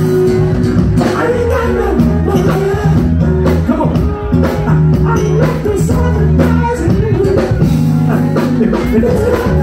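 Live band playing an upbeat rock-funk number: electric guitar over a steady bass line and a regular drum beat.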